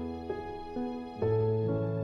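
Slow, gentle background music of held chords. A fuller, louder chord with a deep bass note comes in just over a second in.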